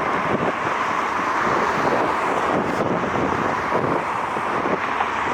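Wind buffeting the microphone in gusts over a steady jet hiss, the engines of a Bombardier CRJ regional jet heading out.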